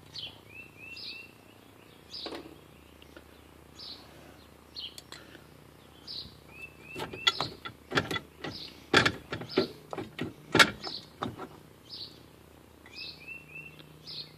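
Birds chirping over and over, with a short trill of quick notes coming back a few times. About halfway through comes a run of sharp metallic clicks and clinks, the loudest sounds here, as the slotted spindle nut and retaining washer are worked off a trailer axle spindle.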